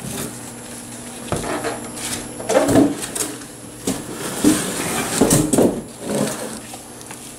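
Unpacking noises: styrofoam packing and a cardboard box being handled and set down, with a series of irregular knocks and scrapes, the loudest about two and a half seconds in and again about five seconds in.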